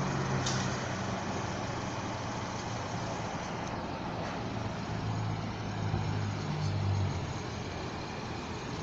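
Motor vehicle engine running, a low steady hum that swells between about five and seven seconds in, over road noise.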